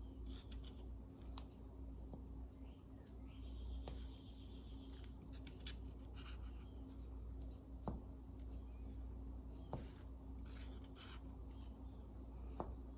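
Faint, scattered clicks and taps of small paint containers being handled and set down, over a steady low hum.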